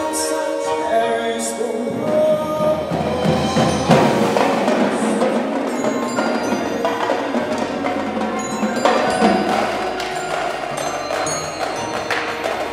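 Winter percussion ensemble playing: marimbas and vibraphones hold sustained chords, the texture grows busier about two seconds in, and sharp drum strokes come in more and more through the second half.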